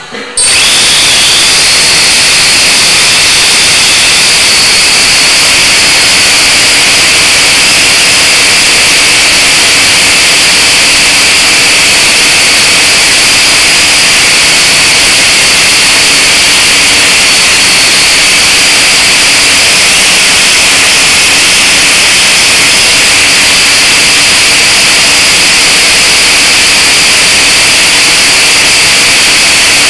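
Blade 180 QX micro quadcopter's electric motors and propellers in flight, a loud steady high-pitched whine heard close up through the quad's own onboard camera. It starts suddenly about half a second in.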